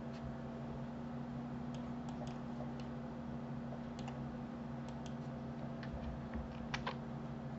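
Computer keyboard and mouse clicks: a dozen or so scattered short clicks, the loudest pair about seven seconds in, over a steady low hum.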